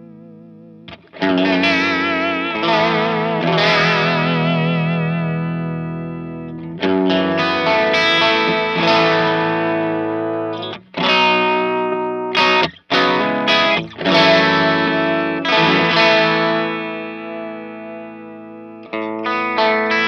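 Electric guitar chords on a Fender Stratocaster, played through the Native Audio Pretty Bird Woman chorus-vibrato pedal into a Vox AC30 amp; the pedal's modulation makes the tone waver steadily in pitch. A chord is struck about a second in, more chords follow with a few quick choppy strums in the middle, and each is left to ring and fade.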